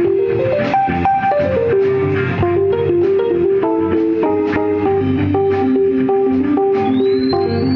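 Live funk-jazz band playing an instrumental: a lead line of quick stepped notes over bass and regular drum hits.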